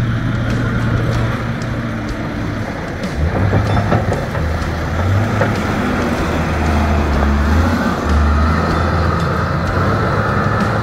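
Caterpillar IT28 wheel loader's Cat 3204 four-cylinder diesel engine running as the machine drives and turns, its low engine note dropping and rising in pitch several times with the throttle.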